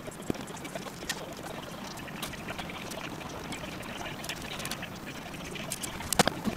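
Fast-forwarded kitchen noise: a busy hiss with scattered quick clicks and clatters and squeaky, chirp-like snatches, with a cluster of sharper clicks about six seconds in.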